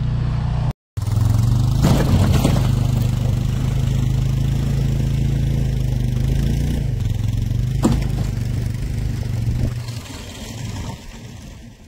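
ATV engine running steadily under load as it tows a snowmobile across snow on a rope, fading away near the end.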